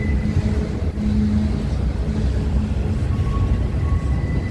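A passing train's steady rumble, with a thin high-pitched wheel squeal that fades out at the start and comes back near the end.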